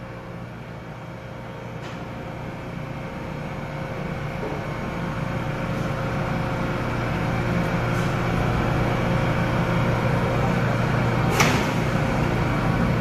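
R179 subway train standing at the platform, its steady electrical and ventilation hum growing gradually louder, with a short sharp click or hiss near the end.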